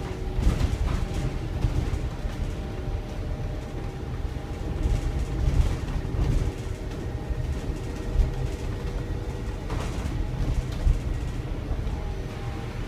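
Inside a BYD/Alexander Dennis Enviro400EV battery-electric double-decker bus on the move: a steady low rumble from the road and running gear. Over it is a faint steady whine from the electric drive, with a few sharp knocks and rattles from the body and fittings.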